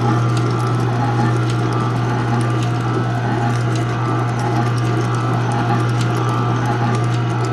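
Paper-shredder motor driving a dual-shaft plastic shredder, running with a steady hum while its cutters chew through plastic pieces with many small sharp cracks.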